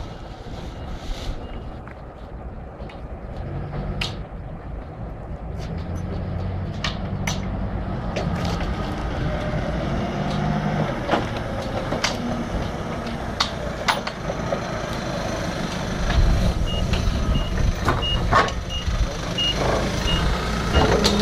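Forklift engine running, with scattered clanks and knocks. About three-quarters of the way through, its reversing alarm starts, beeping about twice a second as the engine grows louder.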